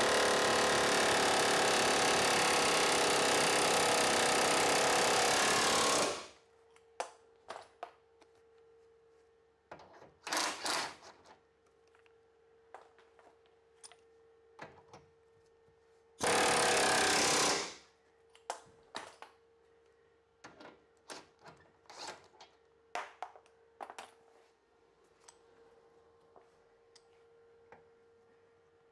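Pneumatic air hammer rattling against the end of a rust-seized link-arm bolt in a Ford Focus Mk2 rear subframe, trying to drive it out; it stops about six seconds in. Scattered metal clinks and taps follow, with a short knock a few seconds later and a second brief burst of hammering just past halfway.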